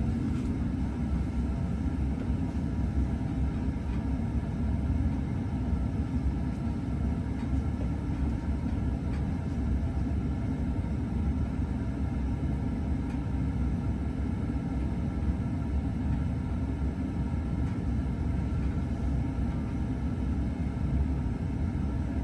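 Ceiling fan with its power switched off, coasting in a spin-down: a steady low rumble of the turning blades and motor, with faint steady tones above it.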